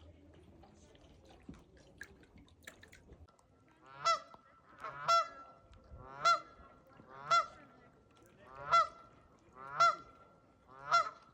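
A large bird calling: seven loud, harsh single calls about one a second, starting about four seconds in after a few faint clicks.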